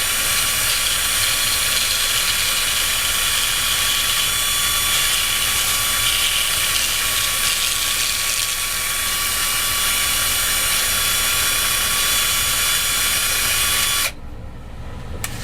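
Power drill running steadily, spinning a 1/8-inch wooden dowel against folded 80-grit sandpaper to thin it down, with the hiss of the sanding. The drill stops abruptly near the end.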